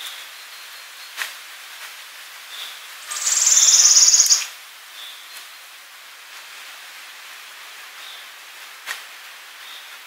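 Forest ambience over a steady hiss. About three seconds in, a loud, high, rapid trill lasts just over a second; short high chirps and two sharp clicks are scattered through the rest.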